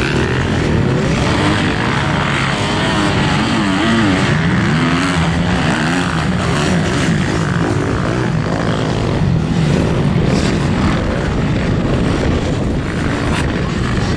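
Dirt bike engines revving hard on a motocross track, their pitch rising and falling as the throttle opens and closes.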